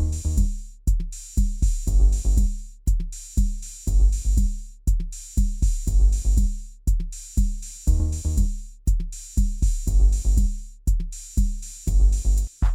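Drums playing alone in a rock recording: deep kick-drum and tom strikes, about two a second, each ringing out, with no other instruments.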